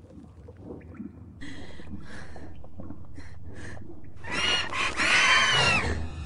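Dragon creature sounds over a low rumble: soft chirps and squeaks from about a second and a half in, then a loud, shrill screeching call that rises and falls in pitch near the end.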